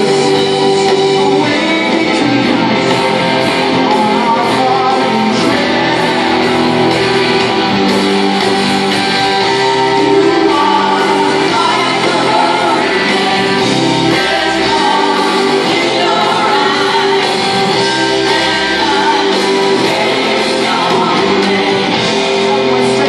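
Rock band playing live, with electric guitars and a sung vocal line, recorded from the audience with the echo of a large hall.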